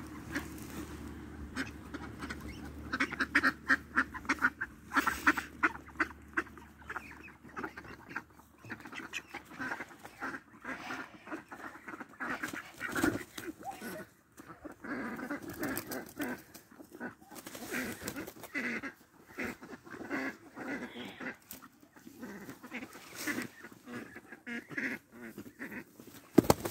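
Two drake ducks, one of them a mallard drake, fighting: repeated harsh quacking and honking calls mixed with the scuffle and wing-beats of the grappling birds.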